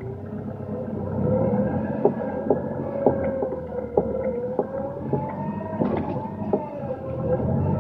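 A small motor running with a whine whose pitch drifts slowly up and down, over a low rumble, with scattered sharp knocks.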